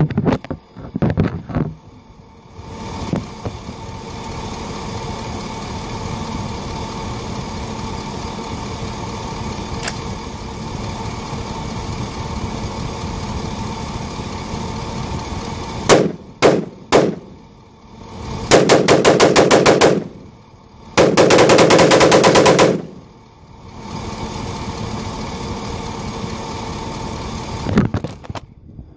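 AR-15 rifle in 5.56 firing: a few shots at the start, three single shots about halfway through, then two rapid bursts of about a second and a half each, fired in quick succession. A steady hum runs in the pauses between the shooting.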